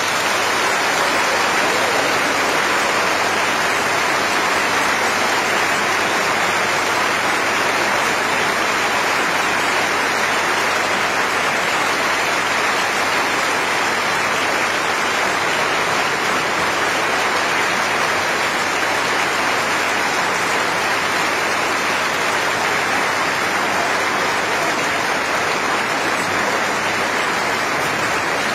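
Audience applauding in a concert hall: dense, steady clapping.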